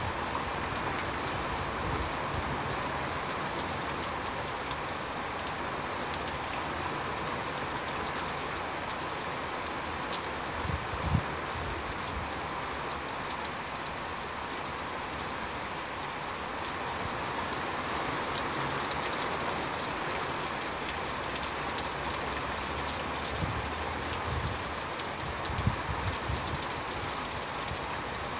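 Heavy rain pouring steadily: a dense, even hiss of rain on the ground with fine close drop ticks. A few short, louder thumps stand out, the strongest about eleven seconds in and several more near the end.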